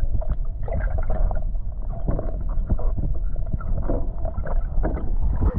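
Muffled low rumble and gurgling of pool water heard underwater, with many small knocks and sloshes as a baby kicks and is pulled through the water.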